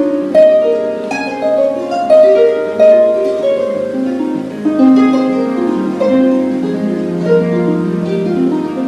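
Lyon & Healy Style 85 CG concert grand pedal harp played solo: a continuous flow of plucked notes, each ringing on and overlapping the next.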